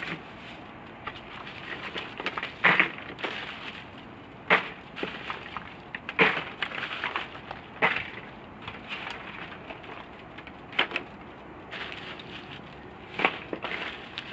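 Loose ice cubes crunching and clattering as they are handled and shifted in plastic coolers: irregular sharp crunches a second or two apart.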